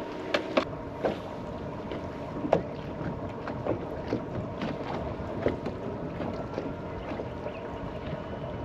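Choppy water lapping and slapping against a bass boat's hull, with wind on the microphone. Scattered sharp knocks run through it, the loudest about half a second and two and a half seconds in.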